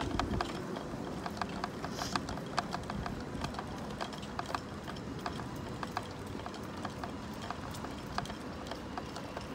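Footsteps walking on brick block paving, about two steps a second, over a steady low outdoor background.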